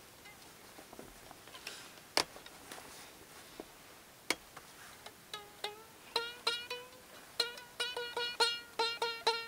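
String-and-plastic-cup noisemaker sounding as fingers pinch and draw down a taut cord fixed to the cup. It gives short repeated notes, all at one pitch, starting about five seconds in and coming faster toward the end. A few faint clicks come before that.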